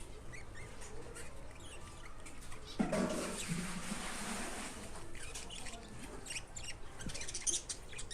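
Caged birds making many short, high chirps, with a sudden noisy burst about three seconds in that sounds like wings flapping.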